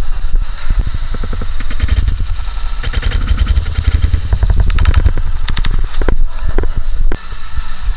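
Airsoft guns firing in rapid full-auto bursts: fast strings of sharp clicks, several bursts one after another.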